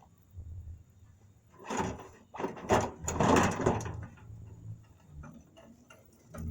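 Metal scraping and clunking from work on an old logging truck's fender, in a few short noisy spells from about two to four seconds in, then faint scattered clicks.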